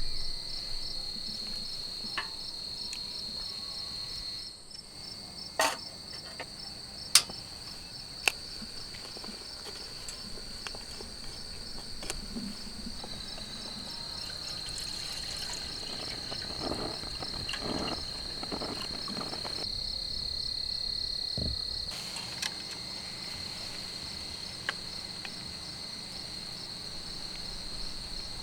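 Crickets chirping in a steady, high-pitched trill, with a few sharp clicks a few seconds in.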